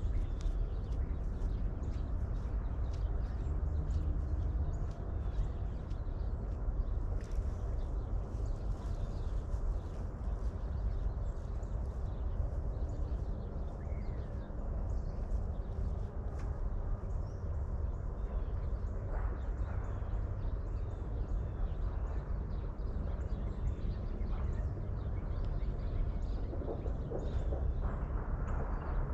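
Outdoor ambience: a steady low rumble with many short knocks or clops throughout, and a few faint bird-like calls.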